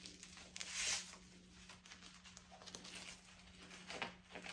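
Nylon belt being pulled through trouser belt loops: fabric rustling and scraping, with a longer, louder scrape about a second in and a few smaller ones after.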